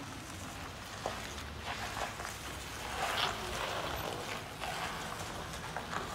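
Footsteps on wet concrete over a steady outdoor background noise, with a few scattered clicks.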